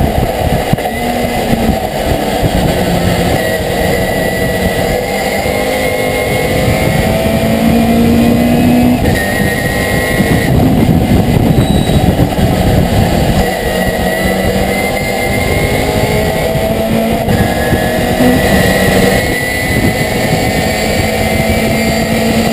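Racing pickup truck's engine at full racing speed, heard from inside the cab, its pitch climbing and then stepping with gear changes several times, over loud road and wind noise.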